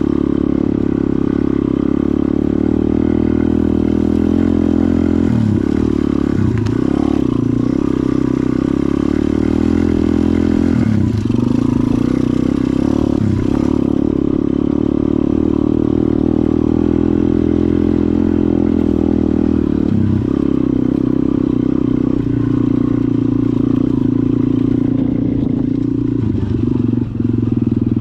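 KXD 125 cross bike's single-cylinder four-stroke engine running steadily while being ridden, its note dipping briefly about six times.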